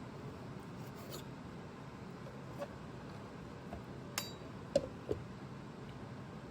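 Light kitchen clinks and knocks, like utensils or glassware set down and handled, a few times over a steady background hiss; the sharpest come in a quick cluster about four to five seconds in.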